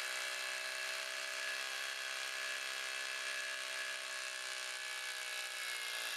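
Rotary hammer drilling a hole upward into a concrete ceiling, running steadily. Its pitch sags slightly near the end.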